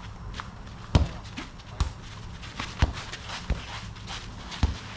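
Jokgu ball being kicked and bouncing on the court during a rally: about five sharp thumps, roughly a second apart, the first the loudest.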